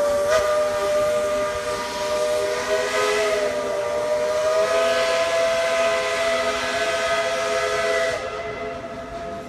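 Steam locomotive's chime whistle blowing one long, loud blast of several notes together as the train pulls away. The blast cuts off about eight seconds in, leaving a fainter single tone.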